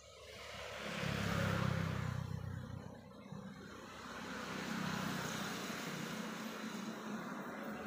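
Motor vehicles passing on a nearby road, one after another. The engine sound swells to a peak about a second and a half in, dips, then swells again around five seconds and slowly fades.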